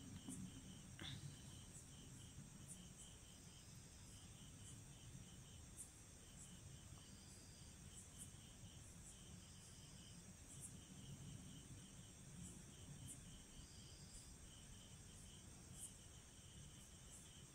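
Near silence with faint insect chirping: rows of short chirps repeating evenly throughout, and a soft click about a second in.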